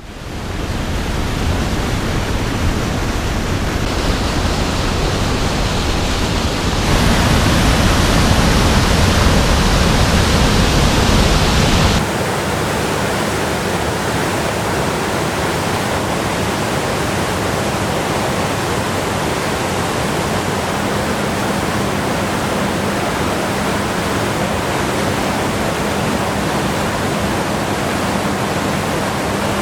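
Small mountain creek in flood, swollen by heavy rain and snowmelt, rushing as a loud, steady noise of fast water. The sound changes abruptly three times, loudest and deepest for about five seconds in the middle.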